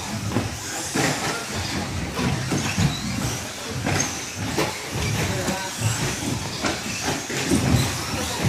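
Radio-controlled 2wd short-course trucks racing on a carpet track: a steady rushing run of motors and tyres, broken by irregular knocks as the trucks land jumps and hit the course.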